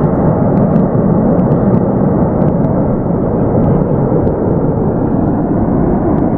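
Loud, steady rumbling roar with a few faint crackles.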